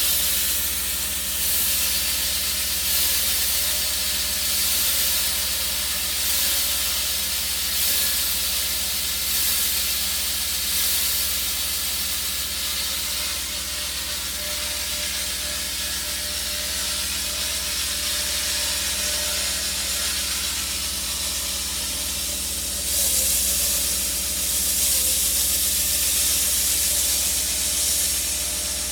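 Concrete saw cutting through thick concrete, a steady hissing grind with slight regular swells, growing louder near the end.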